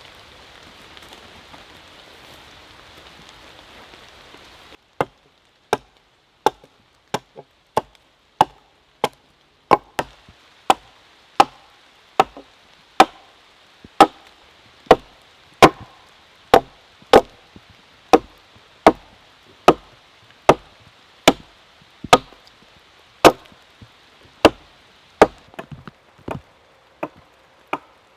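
Steady rain hiss that cuts off about five seconds in. Then a long, regular series of sharp chopping strikes on wood, about one and a half a second.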